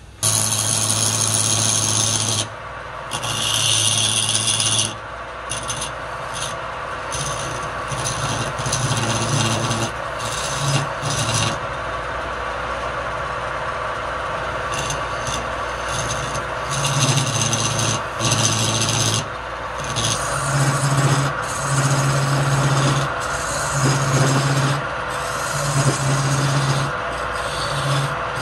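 Wood lathe running while a hand-held flat scraper cuts the spinning wooden blank: a rasping scrape of wood shavings that comes and goes in repeated passes every second or two over the steady hum of the lathe.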